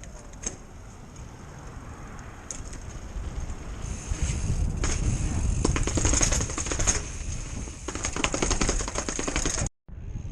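RST Killah suspension fork on a bicycle rattling and knocking in a fast, dense clatter, growing louder about four seconds in, then cut off suddenly near the end.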